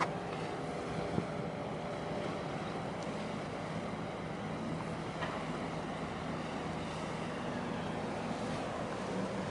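Steady low engine drone of ships passing close by, with wind on the microphone. A small knock comes about a second in.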